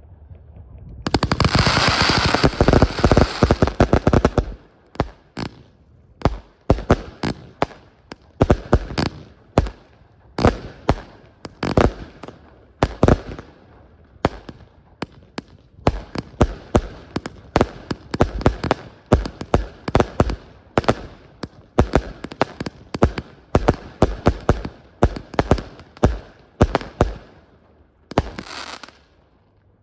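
Consumer (category F2) fireworks going off: a dense stretch of rapid crackling reports about a second in, then many sharp bangs at irregular intervals, at times several a second, with another quick cluster near the end.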